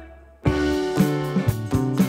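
Background instrumental music with a regular beat. It cuts out for about half a second at the start, then resumes.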